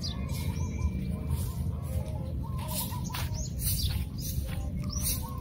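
Birds chirping and calling repeatedly over a steady low rumble.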